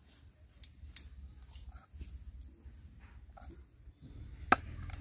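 Scattered scraping and small clicks of bata fish being scaled and cut with a blade, with one sharp click about four and a half seconds in and a low rumble underneath.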